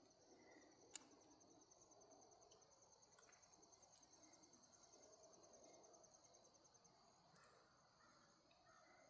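Faint insect trill, a fast, even pulsing of one high note that stops about seven seconds in, over a near-silent outdoor background with a couple of faint clicks.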